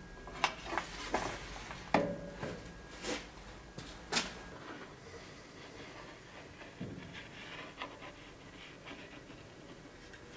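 Sharp clicks and knocks of a steel sword blade and wooden boards being handled on a workbench, the loudest about two seconds in. Lighter taps and scratching follow as the wood is marked out.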